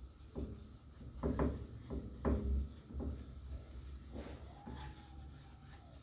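Cloth rag rubbing hardwax oil into a wooden sign by hand, with several short squeaky scrapes of the rag and wood against the work surface.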